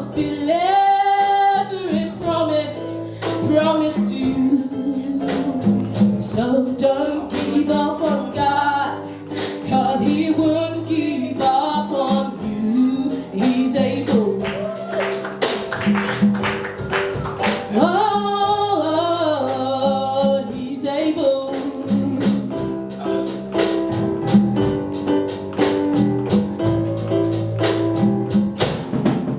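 Gospel song performed live: voices singing a melody over a band with steady percussion and sustained chords.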